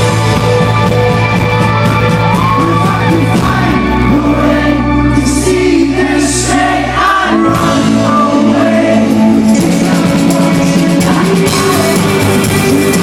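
Rock band playing live with a lead vocal over guitars, bass and drums, recorded from the audience in a large hall, with the crowd shouting over the music.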